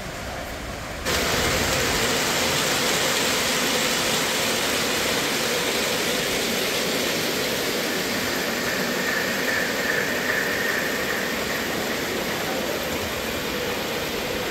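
O gauge three-rail model train, a streamlined New York Central steam locomotive with stainless passenger cars, rolling past close by: a steady rushing rattle of wheels on track that comes in sharply about a second in, with a faint high whine partway through.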